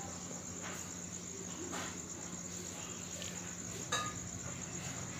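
Faint steady high-pitched chirring of crickets behind the recording, over a low steady hum, with a few faint clicks.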